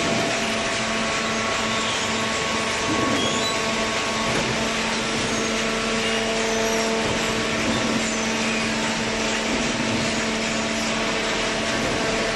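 Hydraulic cardboard baler running: a steady machine hum and hiss with several held tones from its motor and hydraulic pump.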